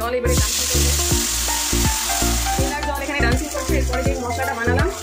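Hot oil and whole spices in an aluminium kadai start sizzling sharply about a third of a second in as wet spice paste goes into the pan. The sizzle eases after a couple of seconds and keeps on more quietly. Background music with a steady beat plays throughout.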